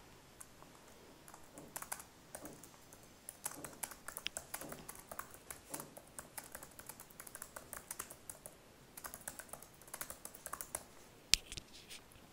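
Typing on a computer keyboard: a faint, irregular run of key clicks, with one sharper click near the end.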